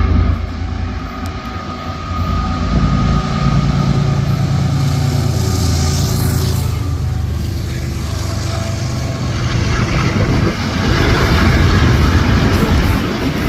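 Freight train with its diesel locomotives running as it passes, with the wheel and rail noise growing louder near the end.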